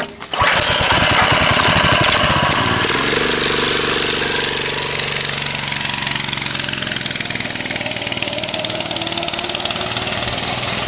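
A 13-horsepower small gasoline engine starting on choke about half a second in. It runs unevenly for the first few seconds, then settles into a steady idle.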